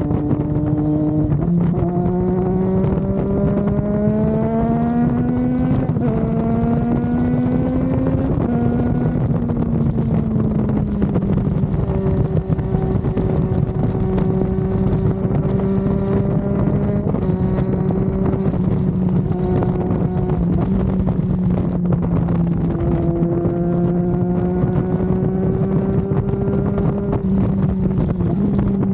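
Triumph Daytona 660's inline three-cylinder engine under way, revving up with a gear change about six seconds in, then holding steady at cruising speed before pulling up again near the end. Wind rushes over the microphone throughout.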